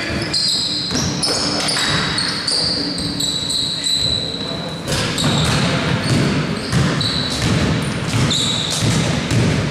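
Basketball game play: the ball bouncing on the court, with many short high-pitched sneaker squeaks, echoing in a sports hall.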